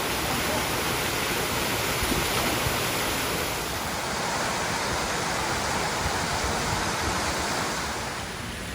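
Steady rushing of water, easing slightly near the end.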